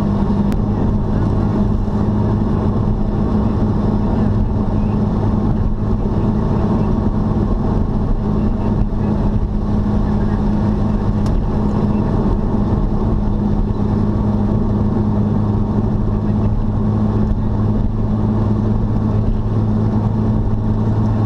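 Car cruising at a steady highway speed of about 90 km/h: a steady engine drone with two constant low hum tones, under a continuous wash of tyre and road noise.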